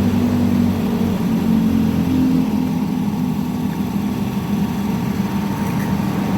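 Steady low drone of an engine running at idle, holding an even level throughout.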